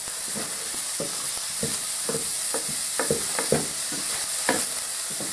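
Chopped onions and garlic sizzling in olive oil in a frying pan, while a utensil stirs them, scraping and knocking against the pan in irregular strokes a couple of times a second.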